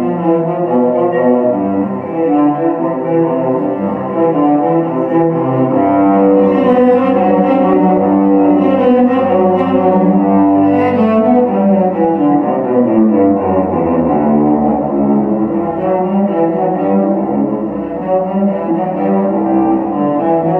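A cello ensemble of about a dozen cellists bowing together in concert, playing a passage of quickly changing notes in several parts.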